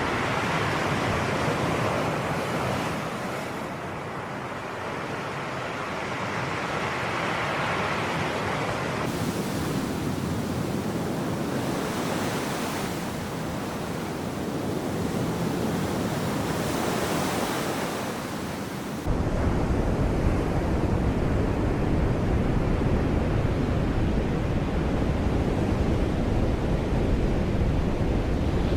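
Sea waves washing onto the shore, the surf swelling and easing. About two-thirds of the way through, the sound changes abruptly to a deeper, steadier rumble.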